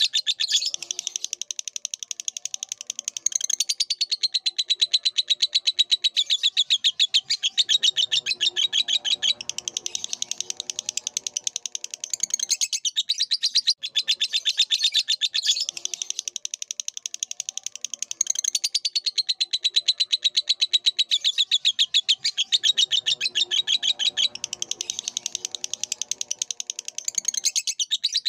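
Lovebird singing a long, rapid, shrill chattering song of fast repeated high notes. It breaks off briefly about halfway through, then resumes.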